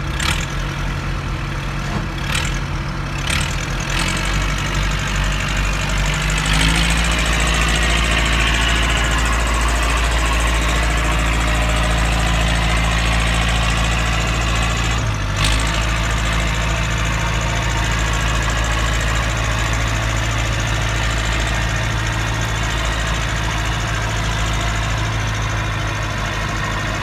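Perkins diesel engine of a 1986 Bombardier tracked swamp buggy running steadily at idle. Its speed rises a little about six seconds in.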